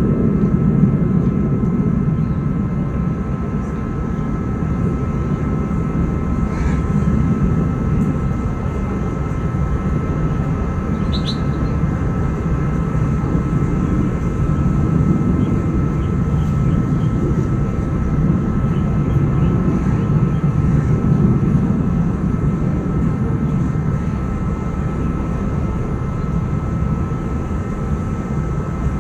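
Steady low mechanical rumble with a faint steady whine over it, like a running engine; a single brief high chirp sounds about eleven seconds in.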